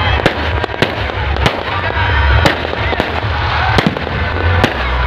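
Fireworks going off in irregular succession: about nine sharp bangs and pops from bursting aerial shells and firecrackers, over a steady low rumble.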